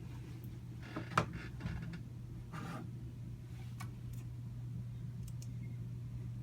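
A steady low hum, with a sharp click about a second in and a few brief scratchy rustles, like small objects being handled.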